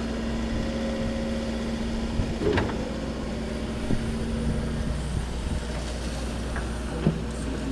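Link-Belt excavator's diesel engine running steadily under digging load, with a steady hum whose note drops about five seconds in, and a few short knocks.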